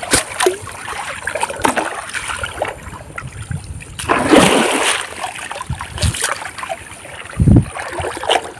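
River water splashing and sloshing around a person wading with a hand net, uneven throughout, with a louder, longer splash about four seconds in and a dull thump near the end.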